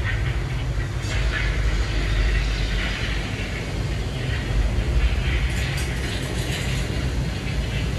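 Boat ride's drive mechanism running: a steady low rumble with a light ratcheting clatter as the ride boat moves along its water channel through the tunnel.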